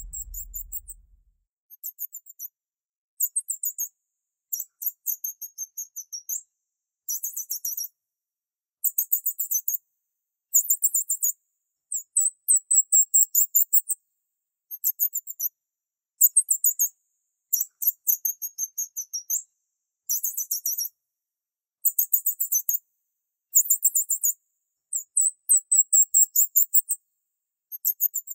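High-pitched chirping in bursts of rapid pulses, each burst about a second long, repeated every second or two with short gaps. It is shrill and thin, with nothing low in it.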